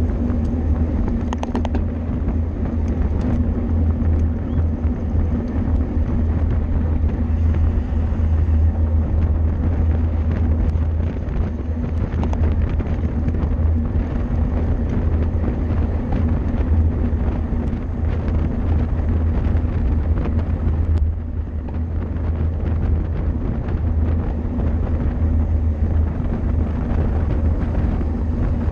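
Wind rushing over the microphone of a camera riding on a racing bicycle at speed, a steady low rumble mixed with tyre and road noise and light scattered ticks and rattles. The rush eases slightly about two-thirds of the way through.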